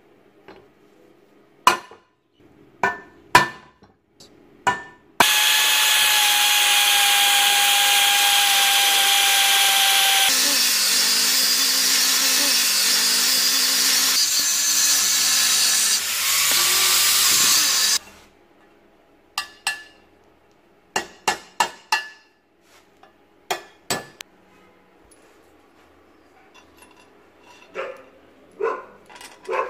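Angle grinder with a thin cutting disc cutting into a steel box section for about 13 seconds: a loud, harsh cutting hiss over a steady motor whine. Before it come a few sharp metal taps, and after it a series of metal taps and knocks.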